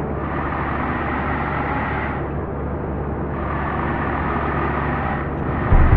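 Steady vehicle engine hum and road noise, with a sudden loud low rumble near the end.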